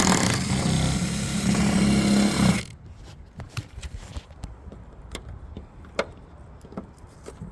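Drill running for about three seconds, spinning a 7 mm socket to back out a roof bolt, then stopping. Light clicks and knocks of handling follow.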